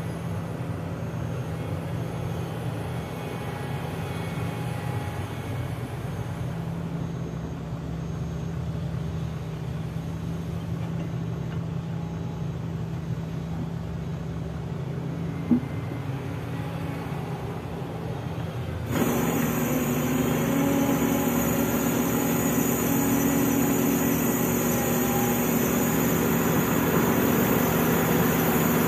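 Heavy diesel engines of a Sany excavator and a dump truck running steadily while soil is loaded. About two-thirds of the way in the sound steps up suddenly, louder and closer, and stays there. There is a single short knock about halfway through.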